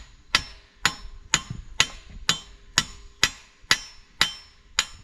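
Hammer striking a steel pin, about ten steady, ringing metal-on-metal blows at roughly two a second, driving the pin through the mounting bracket of a hydraulic excavator thumb. The blows stop shortly before the end.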